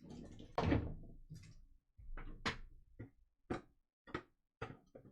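A soft thump about half a second in, then a run of short, light clicks and taps, about one every half second.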